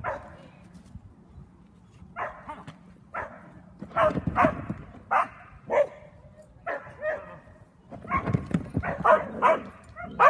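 A dog barking in short, sharp barks, a few at a time at first and then coming faster, about two a second, near the end.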